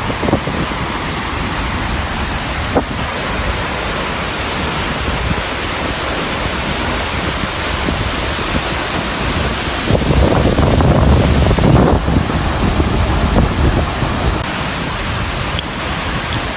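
Loud, steady rushing roar of a waterfall's falling water, with a heavier low rumble swelling for a couple of seconds about ten seconds in.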